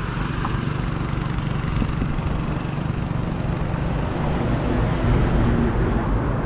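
Road traffic running past: a steady engine and tyre noise, swelling a little about five seconds in.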